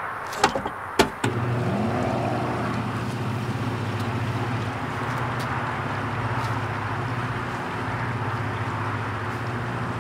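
Filling-station fuel dispenser pumping petrol into a car: a few clicks of the nozzle trigger, then a steady hum of the pump and rush of fuel from about a second in.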